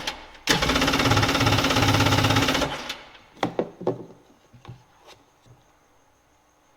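Freshly swapped Kawasaki 750 two-stroke jet ski engine being started for the first time with oil poured into the cylinder: it turns over and runs in a loud, rapid burst of about two seconds, then cuts off sharply. A few separate knocks follow.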